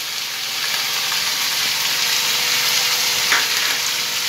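Onion and capsicum pieces sizzling in hot oil in a wok, a steady hiss, with a spatula stirring and one brief knock against the wok about three seconds in.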